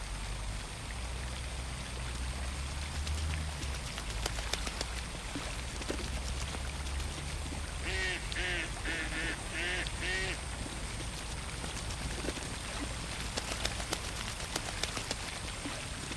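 A duck quacking in a quick run of about five quacks a little past halfway, over a light patter of small water sounds. A low rumble sits under the first half.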